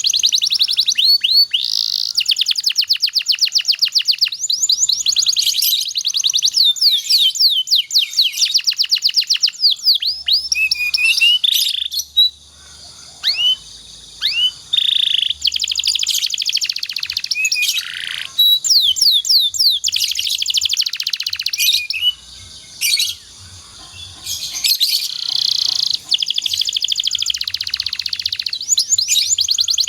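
Domestic canary singing a long song of fast rolling trills and whistled notes, with a few short breaks midway.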